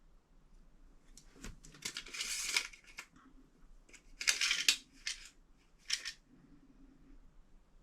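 Short scrapes and clicks of hands working at a small steel tool-box drawer while its inside is measured. They come in three clusters: a longer scrape through the second and third seconds, another around the fifth, and a single short one about six seconds in.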